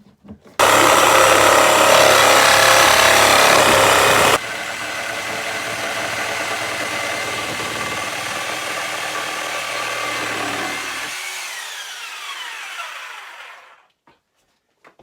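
A power tool's motor running loud for about four seconds, then quieter and steady, then winding down with a falling pitch and fading out.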